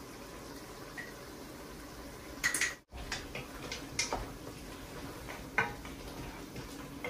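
A spoon stirring mutton and onions in a pot, scraping and knocking against the pot several times from about two and a half seconds in, over a faint steady simmer.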